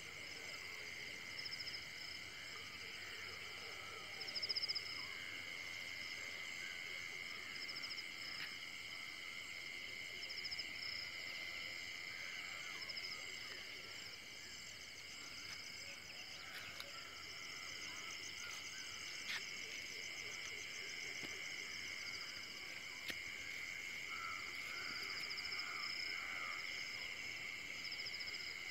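Steady chorus of insects around a rice paddy, several high trilling pitches held together without a break, with a few short faint chirps near the end.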